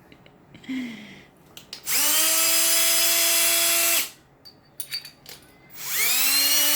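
Power drill boring a small pilot hole in a wall. There are two runs of about two seconds each: the motor whine rises as it spins up and then holds steady. A few light knocks come between the runs.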